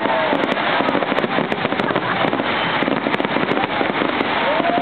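Fireworks going off in quick succession: a dense, continuous crackle of many sharp reports with no break.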